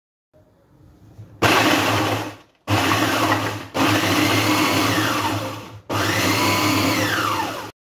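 MARA food processor run in four short bursts, its motor whirring as the blade crushes biscuits into crumbs.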